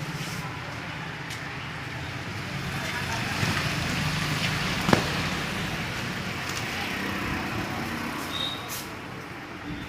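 Steady road traffic noise with indistinct voices in the background, and one sharp click about five seconds in.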